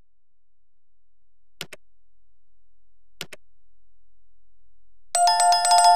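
Subscribe-button animation sound effects: two short mouse clicks about a second and a half apart, then near the end a bright bell-like chime of several ringing tones.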